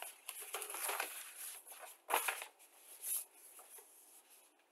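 Paper instruction booklet rustling as its pages are flipped and the booklet is lifted and handled. There is a brief knock about two seconds in.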